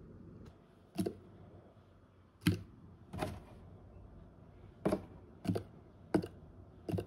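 About seven short, sharp taps and scratches on a corrugated cardboard box, irregularly spaced: a finger poking at the box beside a hole in it.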